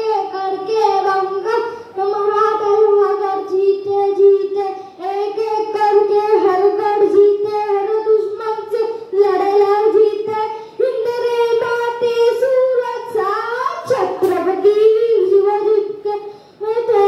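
A boy singing solo and unaccompanied into a microphone, holding long wavering notes with short breaths between phrases. One short pop sounds late on.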